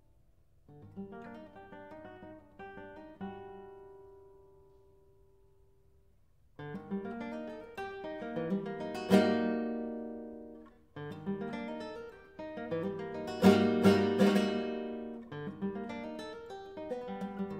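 Nylon-string classical guitar played solo: a soft phrase that dies away into a brief near-silent pause, then two louder passages with sharp, ringing chords, easing to quieter notes near the end.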